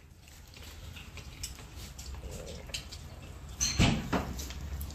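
Metal spoons clinking lightly against ceramic bowls and plates as food is served and eaten, scattered faint clicks with one sharper clink near the end, over a low steady hum.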